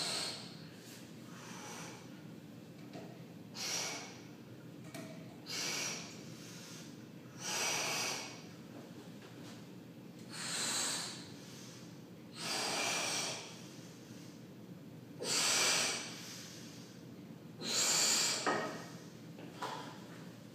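Heavy breathing from dumbbell exercise: a breathy rush of air every two to two and a half seconds, the later breaths longer and louder.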